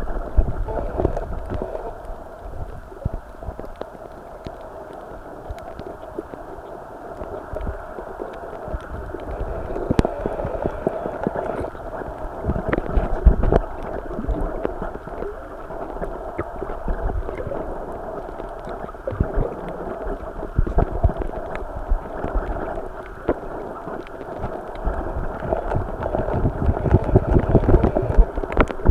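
Muffled water noise picked up by a camera held underwater: a steady dull hiss with low rumbling surges, strongest about halfway through and near the end, and scattered faint clicks.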